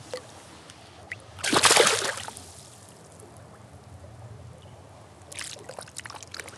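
A small smallmouth bass released into the river, with one loud splash about a second and a half in as it kicks off from the hand into the water. A few fainter short splashing noises follow near the end.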